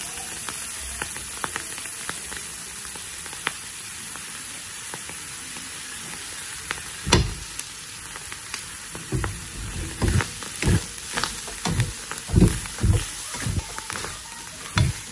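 Weaver ants frying in a pan, sizzling steadily with scattered crackling pops. From about halfway, a plastic spatula stirs them in quick, repeated strokes that scrape and knock against the pan, about one or two a second.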